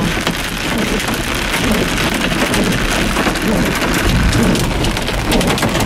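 Torrential thunderstorm rain pelting a car's windshield and roof, heard from inside the cabin as a dense, loud hiss with many sharp taps, and a low rumble about four seconds in.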